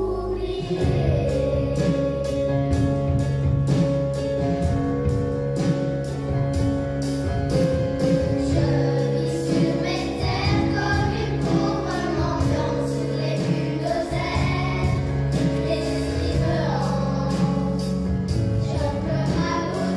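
Children's choir singing with a live band: a steady drum beat and bass guitar under the voices.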